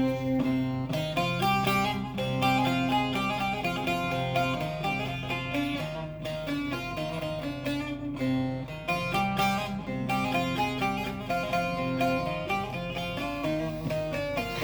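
Bağlama, the Turkish long-necked lute, playing an instrumental melody of quick plucked notes over sustained low notes.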